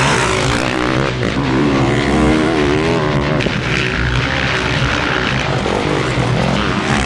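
Motocross bike engines revving hard, their pitch rising and falling as the bikes accelerate and back off.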